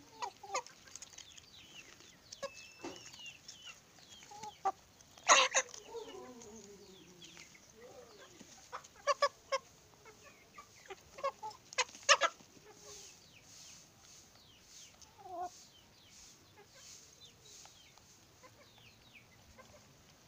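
Village chickens clucking and chirping while they peck feed from a hand, with a falling call about six seconds in. Several sharp taps stand out, the loudest about five seconds and about twelve seconds in.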